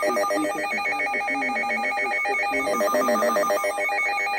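Electronic emergency alert tone: several pitches sounding together in a very rapid, trilling pulse, like a ringing telephone, steady and loud throughout.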